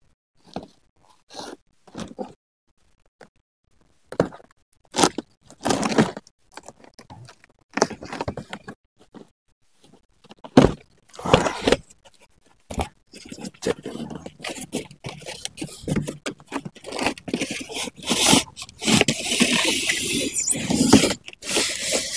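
Cardboard box being slit along its tape with a knife and its flaps pulled open: short, separate scrapes and rustles. Over the last few seconds the scraping turns continuous as the styrofoam packing insert slides out against the cardboard.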